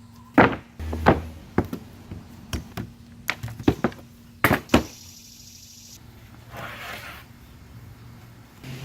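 An irregular run of about nine sharp knocks and thunks over the first five seconds, the kind made by handling and setting down boards or tools. A short scraping rasp follows near the end.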